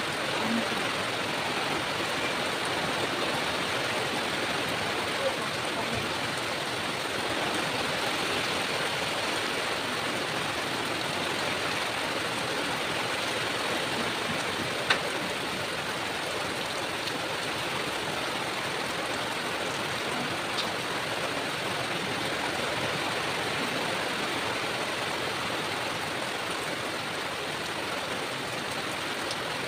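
Steady rushing of running water, with a sharp click about halfway through.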